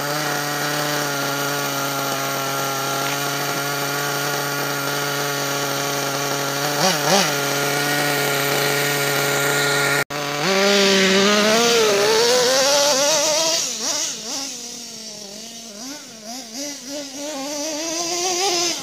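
Kyosho Mad Armour RC monster truck's small engine buzzing at a steady high pitch, then after a brief cut about ten seconds in, revving up and down as the truck drives off.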